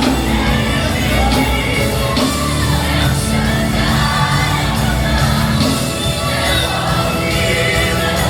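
Live gospel worship music: a band with singers and a choir, the crowd singing and shouting along.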